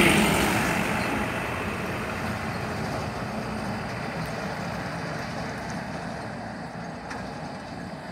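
Truck driving past close by and pulling away. Its engine and tyre noise is loudest at the start and fades slowly as it goes.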